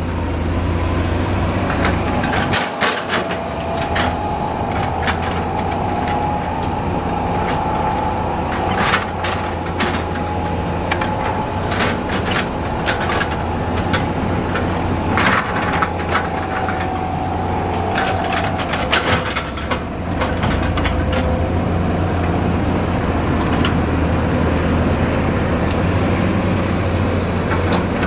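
Heavy diesel construction machinery running steadily, with a low engine hum, a faint wavering whine, and scattered metallic knocks and clanks.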